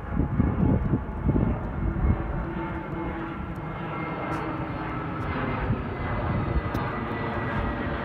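Low, uneven rumbling buffets for the first second or so, then a steady engine drone with a held hum that slowly grows louder.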